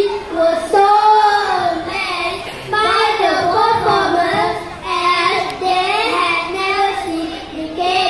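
A group of young children singing a song together, with held notes.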